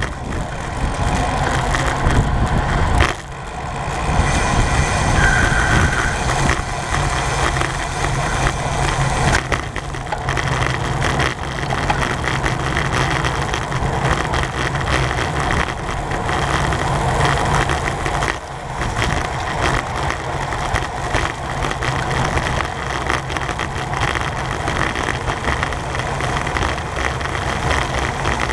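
Steady rush of wind and road noise from a bicycle road race under way, with a heavy low rumble.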